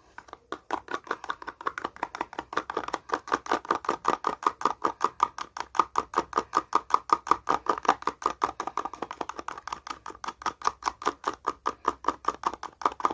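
Polyester resin and hardener being stirred with a screwdriver in a small container, the tool ticking against the sides about five times a second in a steady rhythm.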